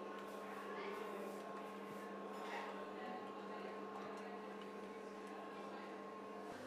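Quiet room tone: a steady hum of several fixed pitches over a faint background haze. Just before the end the hum drops out and only a plain hiss remains.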